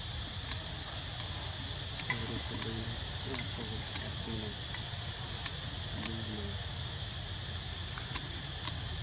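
Steady high-pitched insect drone in the trees, with scattered sharp clicks and faint distant voices in the middle.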